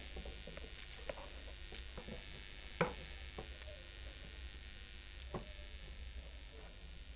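Steady low hum and faint hiss with scattered light clicks and knocks of handling, the sharpest knock about three seconds in and another about two and a half seconds later.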